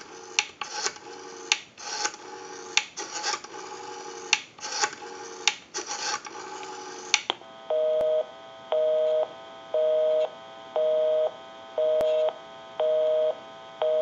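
Western Electric 302 rotary dial being turned and spinning back, its pulses clicking over the phone line. About seven seconds in a busy signal starts, beeping steadily about once a second: the dialled number is busy.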